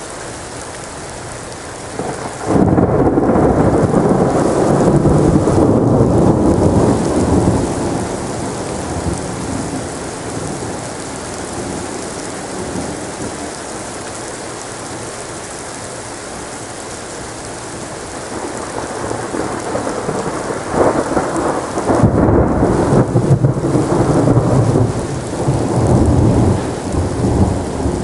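Thunderstorm: steady rain hiss with two rolls of thunder. The first breaks suddenly about two seconds in and rumbles away over several seconds; the second builds up in the last third, with sharp cracks inside a long rumble.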